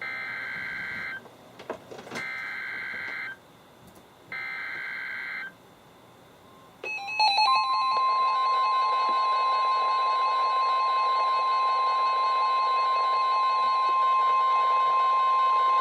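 NOAA Weather Radio Emergency Alert System transmission: three SAME digital header bursts, each about a second long, warbling between two high tones. About seven seconds in comes the loud, steady 1050 Hz warning alarm tone, with other alarm tones layered over it, announcing a new warning.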